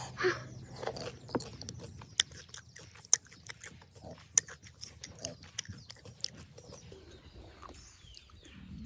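A person eating pani puri: crisp puri shells crunching and mouth noises, heard as many scattered sharp clicks. A short voice sound comes just after the start.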